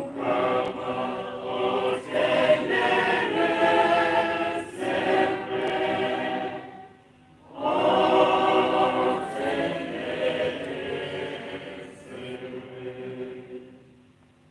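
Choir singing the Gospel acclamation before the Gospel reading at Mass. It breaks off briefly about seven seconds in, then resumes and fades out near the end.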